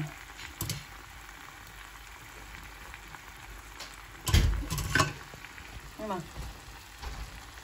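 Food sizzling in a hot pan, a steady hiss, with a few loud knocks about four to five seconds in.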